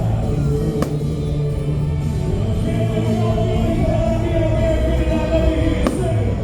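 Music with sung, choir-like held notes, the soundtrack playing during a fireworks show, with two sharp firework cracks, about a second in and near the end.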